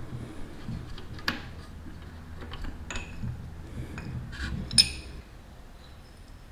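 Brake pads with metal backing plates clicking and clinking as they are handled at a motorcycle's front brake caliper and set down on the floor, with a few scattered clicks and one sharper clink just before five seconds in.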